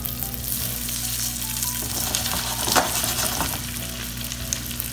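Red snapper fillets sizzling as they pan-sear seasoned side down in olive oil and butter in a stainless steel frying pan, with a steady crackling hiss and a sharp pop about three seconds in.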